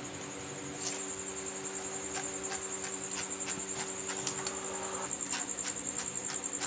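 A cricket trilling steadily at a high pitch, louder from about a second in, over a steady low hum, with scattered faint light clicks.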